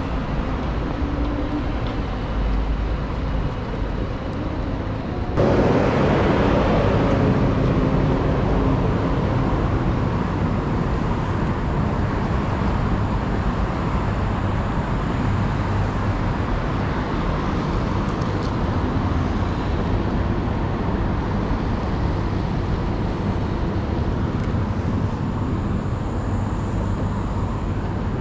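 City street traffic noise: a steady rumble of cars on wet roads, jumping suddenly louder about five seconds in and holding steady after.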